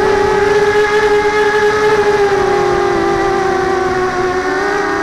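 Brushless motors and propellers of an x210 FPV racing quadcopter in flight, a steady high-pitched motor whine whose pitch wavers and dips slightly about three seconds in as the throttle changes.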